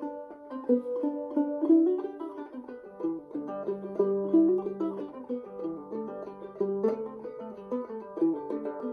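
Old-time fiddle tune played on a plucked string instrument: a quick melody of picked notes.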